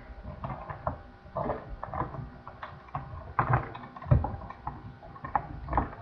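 Handling noise: irregular clicks, knocks and rubbing as small objects are fiddled with close to the microphone, with the heaviest knocks about three and a half and four seconds in.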